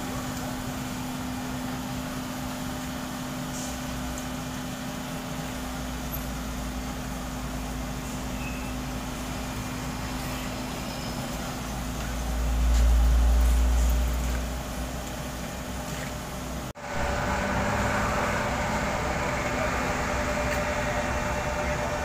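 Diesel engines of road-paving machinery (a Sumitomo asphalt paver and dump trucks) running with a steady hum. A little past the middle a truck's deep engine rumble swells for about two seconds and fades. Near the end, after a brief drop-out, a closer and busier engine sound takes over.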